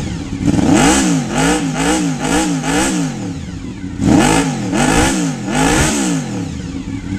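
1996 Honda VFR750's V4 engine through a Staintune aftermarket exhaust, blipped repeatedly off idle: a run of five quick revs, each rising and falling in about half a second, a brief settle back to idle, then four more.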